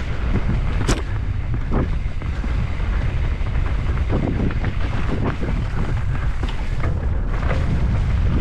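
Wind buffeting the microphone of a camera riding fast along a dirt trail, with a steady low rumble and frequent short knocks and rattles from the bumpy ground and brush.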